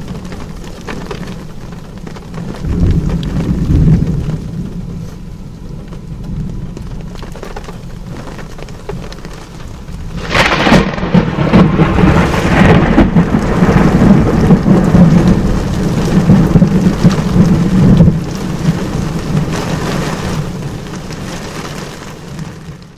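Thunderstorm: steady heavy rain with thunder rumbling. A sharp thunderclap about ten seconds in is followed by several seconds of loud rumbling, which eases off near the end.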